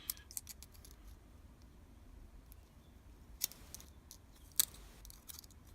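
Small metallic clicks and ticks of a hand tool working in a lock core's pin chamber, trying to draw out a stuck spring. A few scattered ticks, the sharpest about three and a half and four and a half seconds in.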